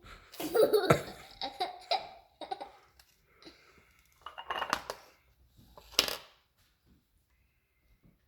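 Laughter in short bursts, mostly in the first two seconds, with two more bursts around the middle, then it dies away.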